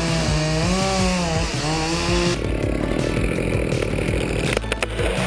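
A small engine revving, its pitch rising and falling. About two seconds in it gives way abruptly to a rough, noisy cutting or grinding sound, with a few sharp clicks near the end.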